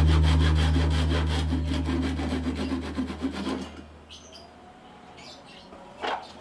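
Fine-toothed hand saw cutting through plywood in quick, even strokes, over background music that fades out. The sawing stops a little past halfway, leaving faint bird chirps and a single knock near the end.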